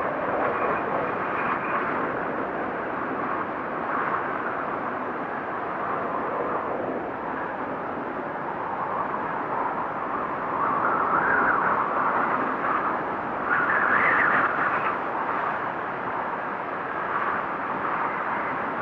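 Steady rushing noise of a snowfall ambience recording, swelling louder twice, about 11 and 14 seconds in.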